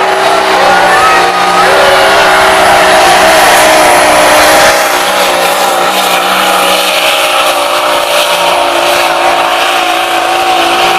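Pulling semi truck's diesel engine running hard: a loud, steady drone whose pitch wavers slightly without rising or falling overall.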